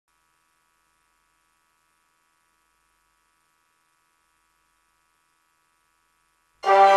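Near silence with a faint steady hum, then music starts abruptly near the end.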